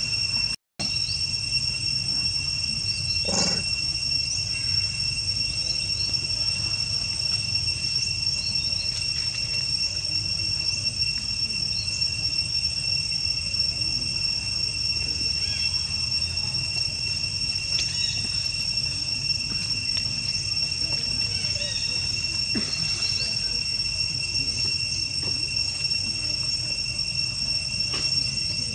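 A steady, high-pitched insect chorus over a low rumble, with a short sound about three and a half seconds in. The audio cuts out briefly about half a second in.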